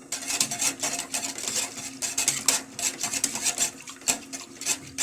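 Hand whisk beating flan powder into hot milk in a pot: quick, rhythmic scraping strokes against the pot, whisking to keep the mixture from lumping as it heats.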